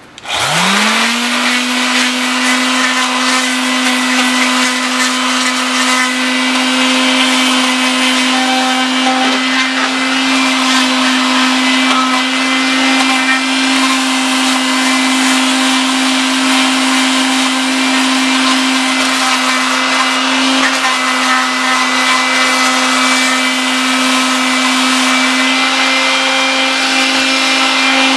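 Handheld electric grinder spinning up to speed within the first second, then running steadily with a high whine and a gritty hiss as it works over a metal outboard part, stripping it to bare metal.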